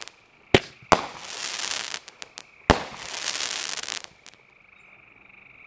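Aerial fireworks bursting: three sharp bangs in the first three seconds, each followed by about a second of crackling as the stars break, with a few small pops between. After about four seconds only a steady high-pitched drone remains.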